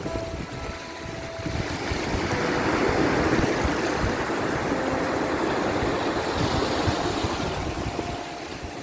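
Sea waves washing, with wind rumbling on the microphone; the wash swells about two to three seconds in and eases off near the end.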